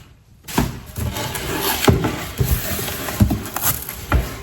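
Cardboard box and packaging being opened and handled: scraping and rustling, with four sharp knocks.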